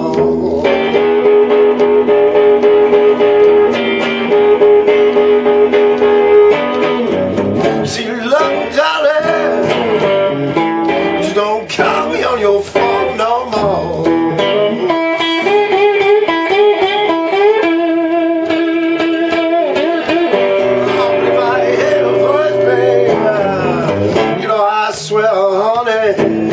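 Blues slide guitar on a Telecaster-style electric guitar: an instrumental break of held, sliding notes with wavering pitch between sung verses.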